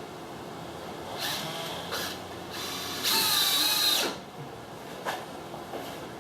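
Power drill driving 3-inch screws into the camper's wooden roof spars in short bursts: two brief pulses, then a longer run of about a second with a steady motor whine, and a sharp click near the end.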